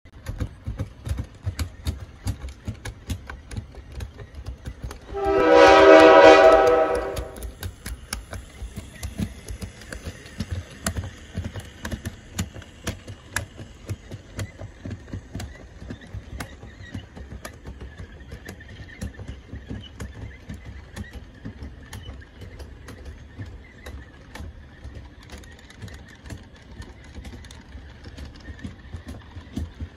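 HO scale model freight train rolling past, its wheels clicking steadily over the rail joints over a low rumble. About five seconds in, a train horn sounds once for about two seconds, the loudest thing heard.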